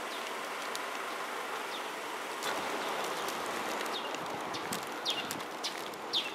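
Steady outdoor hiss with a few short, high, falling bird chirps about two, four, five and six seconds in.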